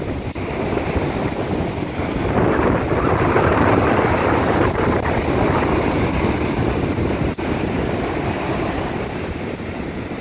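Ocean surf washing onto a beach, with wind rumbling on the microphone. The wash swells about two seconds in and eases a little near the end.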